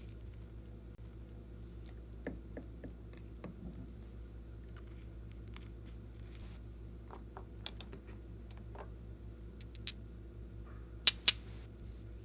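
Glossy slime being handled, making scattered soft sticky clicks and small crackles over a steady low hum, with two sharp, loud pops in quick succession near the end.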